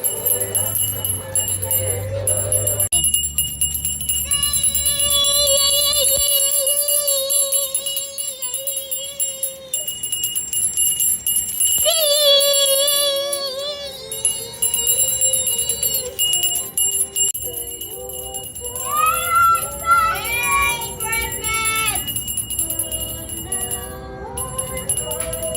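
Handbell rung continuously, a steady high-pitched ringing, with a melody in long held, wavering notes over it, sung or played as Christmas music.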